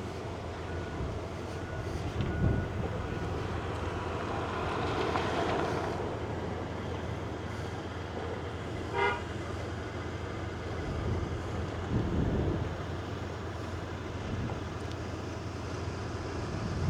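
Steady vehicle and road rumble, with a noise swell about five seconds in like a vehicle passing, and a single short car-horn toot about nine seconds in.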